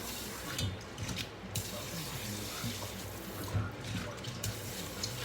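Kitchen tap running steadily into a sink, with a few light knocks.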